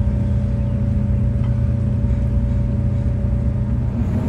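A ferry's engines droning steadily: a deep, even rumble with a constant hum on top.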